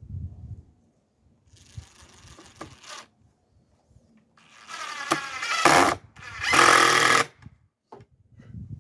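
Power drill running in three short bursts, the last two much louder, its pitch wavering as the speed changes.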